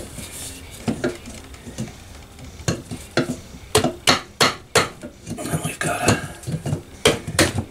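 Irregular light metal clinks and knocks, a dozen or so, as a Kohler KT17 engine's cylinder barrel is rocked and worked down over its piston into the bore.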